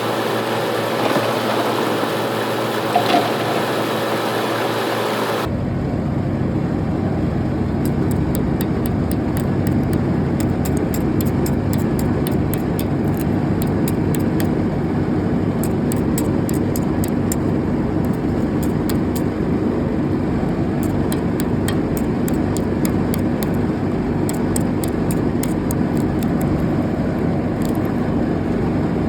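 Steady machine noise like an engine running, changing abruptly about five seconds in, then continuing evenly with faint rapid ticking high up.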